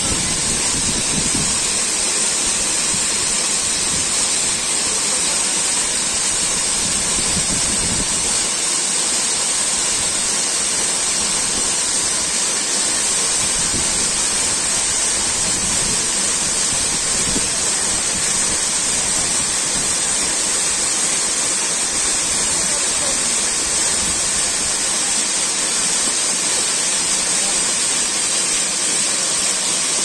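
Waterfall pouring onto rocks and splashing into a pool: an even, unbroken rush of falling water.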